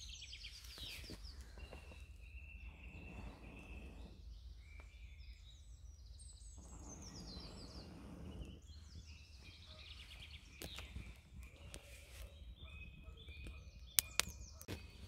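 Birds chirping and trilling while a person blows twice on smouldering campfire embers, each a breathy rush of about two seconds. Near the end, two sharp loud cracks as the dry twig kindling catches into flame.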